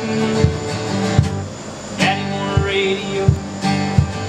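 Two acoustic guitars strummed together in a steady rhythm, playing chords.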